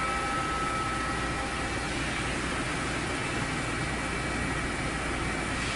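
Friction welding machine running: a steady mechanical hum and hiss with faint high whining tones over it.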